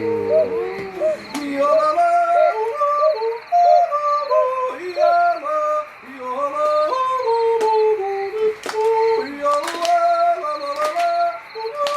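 Yodeling: a melody of short held notes that flip abruptly between low and high pitches, with faint high bird chirps above it and a few sharp clicks in the second half.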